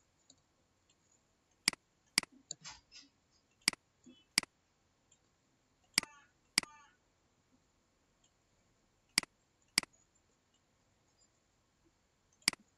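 Computer mouse button clicking: about nine sharp single clicks, mostly in pairs about half a second apart.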